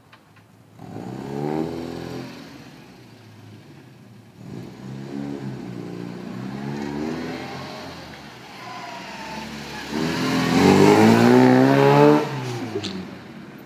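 Classic Mini Cooper's four-cylinder engine accelerating hard three times, the pitch climbing through each pull and dropping away as the throttle comes off. The last pull, from about ten seconds in, is the loudest and ends abruptly about two seconds later.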